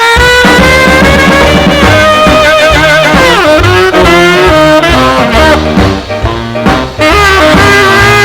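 Instrumental break of a mid-1950s R&B record: a horn lead with bending, sliding notes over a bass and rhythm section.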